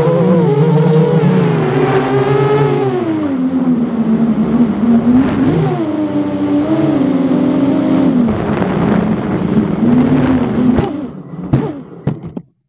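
FPV racing quadcopter's four 2206 2000kv T-Motor brushless motors with 6-inch bi-blade props, heard from a camera on the drone, whining as they rise and fall in pitch with the throttle. Near the end the motors drop away, a few knocks follow as the quad comes down on the ground, and the sound cuts off.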